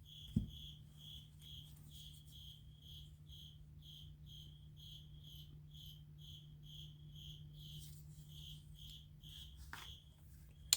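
Faint chirping of a cricket, short high pulses repeating at about three a second with a brief pause near the end, over a steady low hum; a single soft knock comes just after the start.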